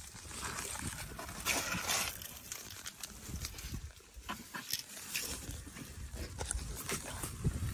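Young African elephants breathing through their trunks right at the microphone, with rustling and small knocks as skin and branches brush past. A louder breathy rush comes about one and a half seconds in.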